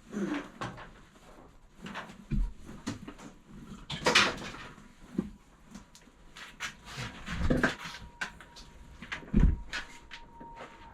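Scattered knocks, clunks and rattles of objects being moved and set down, the loudest about four seconds in and again near eight and nine and a half seconds. A faint steady high tone comes in near the end.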